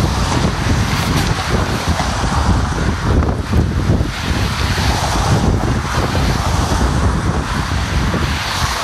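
Wind buffeting the microphone in uneven gusts, mixed with the steady rush of road traffic.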